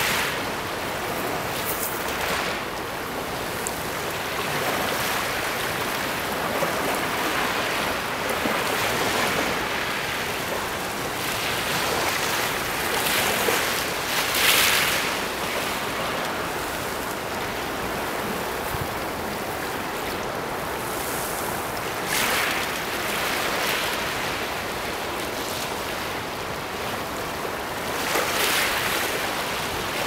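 Sea waves washing against a rocky reef, a steady hiss that swells in surges every several seconds, the loudest about halfway through.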